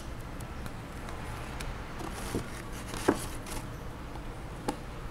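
Handling sounds of a magnetic play set: soft rustling and three small taps, the loudest about three seconds in, as a flexible magnet animal piece is peeled from its sheet and pressed onto a printed magnetic board. A low steady hum sits underneath.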